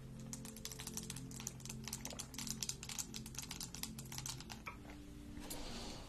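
Long fingernails tapping quickly on a studded plastic tumbler cup, about six clicks a second for some four seconds, then stopping. Soft background music under it.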